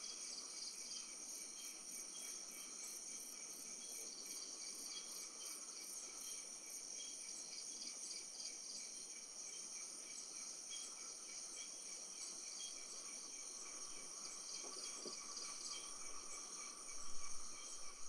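Night chorus of crickets and other insects: a steady, high, shrill trilling with fast pulsing, overlaid by short chirps repeating at an even pace. A low rumble with a few louder bumps comes in near the end.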